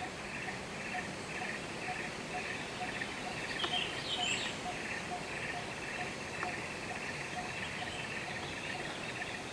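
Tropical forest background: a steady, pulsing insect buzz, with a faint tick repeating about every half second. A few short bird chirps come about four seconds in.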